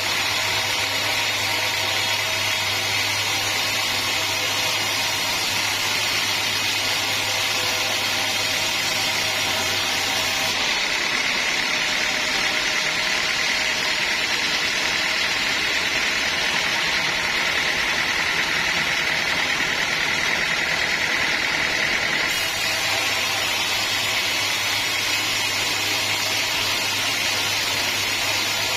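Sawmill machinery running steadily while teak logs are sawn. For about twelve seconds in the middle, the low hum drops away and a higher whine grows stronger.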